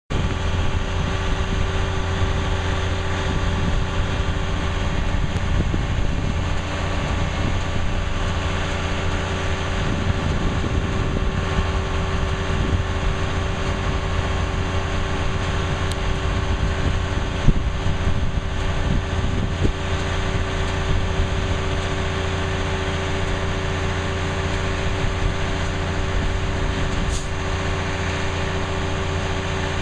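Crane engine running steadily, a constant mechanical drone with a low hum, with one brief sharp knock a little past halfway.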